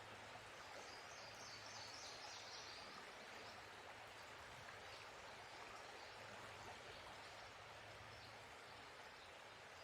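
Faint, steady outdoor ambience hiss, with a few faint high chirps about two seconds in.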